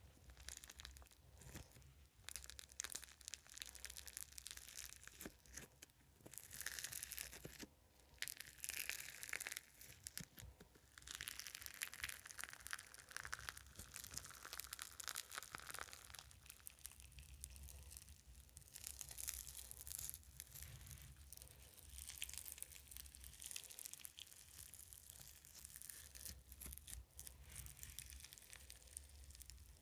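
Fingers squeezing, pinching and pulling apart grainy foam slime, giving a quiet, dense, fine crackling that swells and eases in waves as it is worked.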